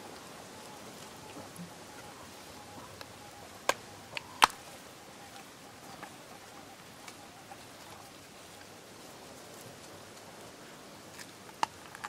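Spotted hyaena feeding at a carcass: a few sharp cracks and clicks, three close together about four seconds in and another near the end, over a faint steady background.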